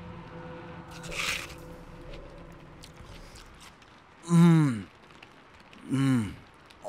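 A man bites into an apple with a short crunch about a second in, then gives two satisfied hums ("mmm") that fall in pitch, about a second and a half apart, the second near the end. A faint steady low hum sits underneath in the first half.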